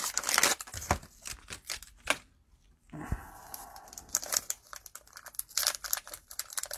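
Cellophane wrapper of a trading-card pack crinkling as it is torn open, in irregular crackles.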